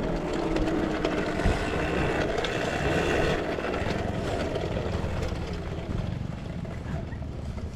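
Small off-road engines running steadily, micro ATVs warming up in the pits.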